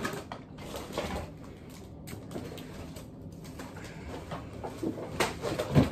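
Shopping bags rustling and crinkling as items are dug out of them by hand, with a couple of louder handling knocks near the end.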